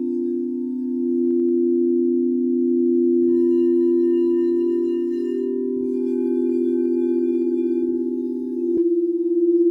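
Crystal singing bowls ringing in long, overlapping tones with a slow waver. A new bowl is struck about a third of the way in, another just past halfway, and a third near the end, each adding a fresh ringing tone.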